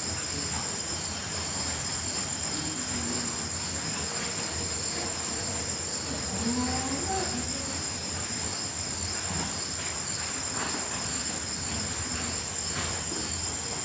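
Chorus of crickets trilling steadily, a continuous high-pitched drone over a background hiss.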